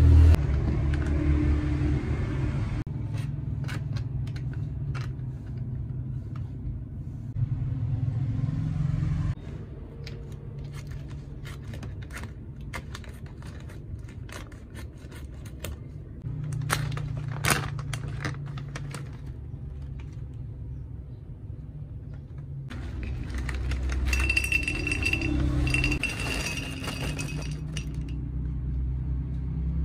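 Handling noises: many short clicks, taps and scrapes over a steady low rumble that rises and falls in steps, with a brief high whine over a hiss near the end.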